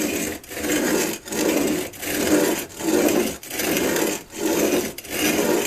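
A steel chisel bevel, held in a wheeled honing guide, is pushed back and forth on sandpaper to sharpen it. It makes a rasping scrape on each stroke, about eight strokes at an even pace of a little under one a second, with a short pause at each turn.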